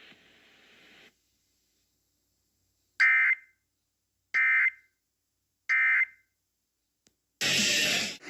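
Emergency Alert System end-of-message data tones: three short, identical bursts of buzzing digital data about a second and a half apart, marking the close of the Iowa EAS test. Near the end, loud radio static hiss comes in.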